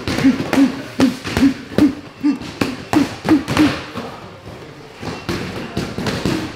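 Punches landing on boxing focus mitts in a quick run of thuds, about three a second, then a short pause and a few more hits near the end.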